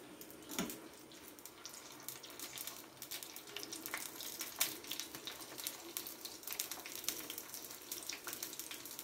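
Sliced shallots frying in hot coconut oil for tempering: a steady sizzle with many irregular sharp crackles.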